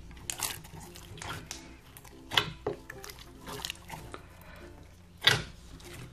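Slime being kneaded and mixed together by hand: irregular sticky clicks and squelches, with two louder smacks about two and a half and five seconds in. Some of the slimes are stiff and tear apart as they are worked.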